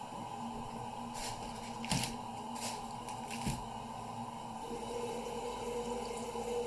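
A few faint clicks and scrapes of something being handled, over a steady low hum.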